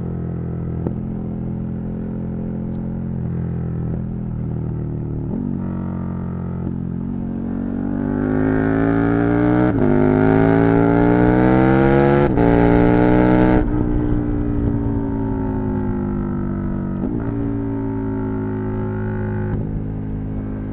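KTM 1290 Super Duke R's 1301 cc V-twin engine under way, running at steady revs, then pulling hard with rising pitch through two quick upshifts. It then eases off as the revs fall, with two short rev blips near the end.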